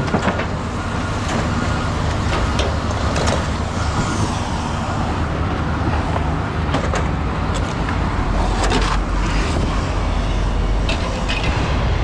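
A heavy vehicle's engine running close by, a steady low rumble, with several sharp clanks of scrap metal and plastic being handled.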